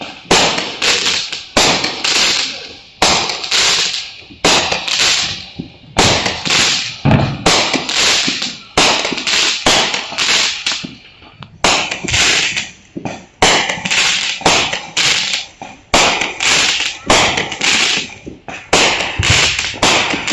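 Firecrackers going off in a long, irregular string of loud sharp bangs, roughly two a second, each fading quickly.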